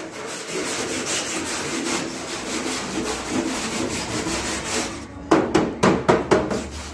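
Hand wire brush scrubbing rust and dirt off the sheet-metal body of an air cooler: a steady scraping, then a quick run of louder, sharper strokes about five seconds in.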